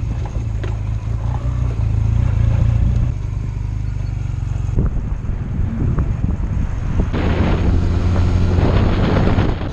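Honda Rebel motorcycle engine running just after starting, its note shifting a few seconds in. It grows louder with wind on the microphone from about seven seconds in.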